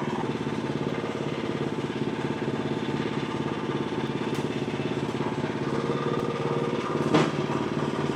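Frontier OS35 hydraulic sawmill's engine running steadily at an even pitch while the hydraulics are worked. About seven seconds in there is a single short, sharp clack.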